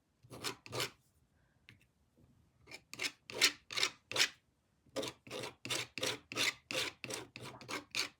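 Rasping back-and-forth strokes of a tool scraping wet paint on a painted puzzle board, about three strokes a second, with a pause of a second or two near the start. The scraping lifts the top layer of paint so the colour underneath shows through.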